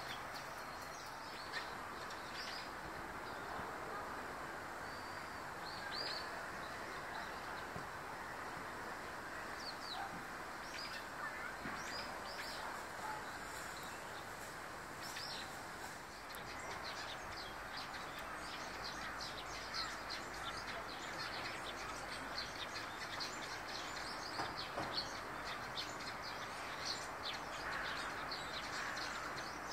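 Eurasian tree sparrows chirping: many short, high chirps, scattered at first and growing busier and more crowded from about halfway through, over a steady background rush.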